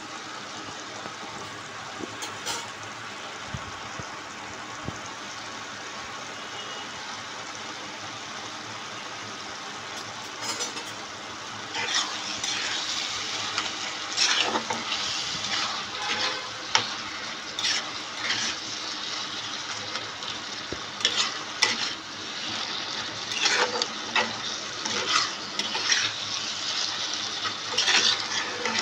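Spinach, potato and eggplant curry with fried shrimp sizzling and simmering in a wok. A spatula scrapes and stirs through it in many short strokes from about twelve seconds in.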